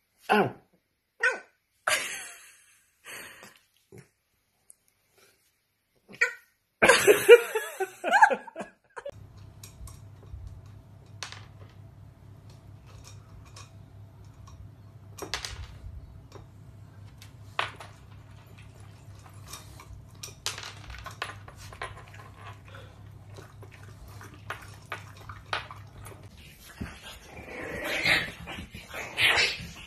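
French bulldog puppy copying a man's 'oww' with short howling cries, then a louder burst. Then a long quieter stretch of light clicks and taps over a low steady hum, and near the end a dog's noisy vocalising.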